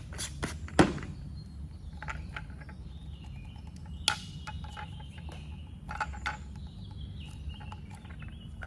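Plastic shower head being handled and fitted back together: scattered clicks and knocks of plastic parts, the loudest just under a second in and another about four seconds in.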